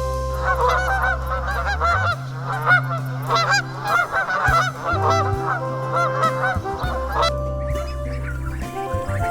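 A flock of birds calling, a dense chatter of many short overlapping calls that begins about half a second in and stops about seven seconds in, over background music with sustained notes.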